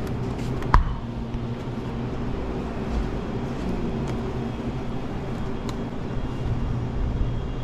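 Steady low hum of refrigerated glass-door drink coolers, with a single sharp knock about a second in.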